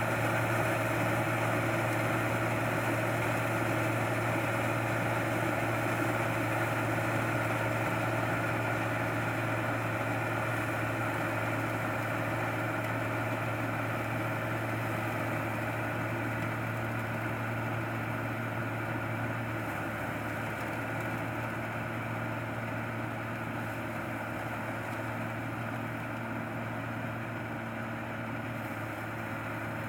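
Rice combine harvester's engine running steadily at a constant speed, slowly growing a little fainter.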